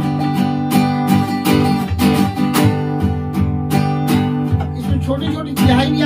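Acoustic guitar strummed in a steady run of downstrokes, about two and a half a second, ringing chords in a 16-beat Teen Taal pattern with accented strokes on the cycle's first beats.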